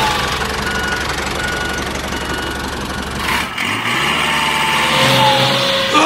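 Small motor of a DIY mini tractor running steadily, its low hum rising in pitch a little past three and a half seconds in.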